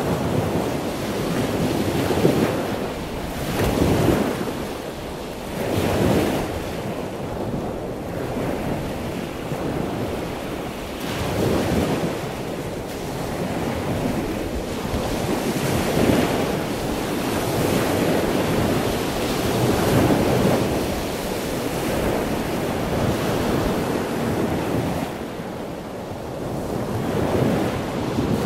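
Sea waves breaking on the shore: a continuous wash of surf that swells and eases every few seconds.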